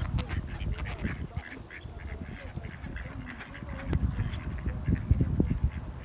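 Mallard ducks quacking in a string of short, soft calls, over the low rumble of wind buffeting the microphone.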